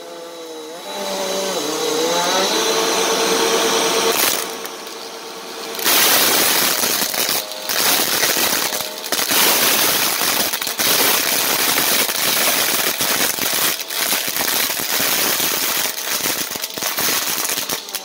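Bissell upright vacuum cleaner running, its motor whine rising to a steady pitch in the first few seconds. From about six seconds in, plastic beads crackle and rattle densely as they are sucked up into the cleaner head.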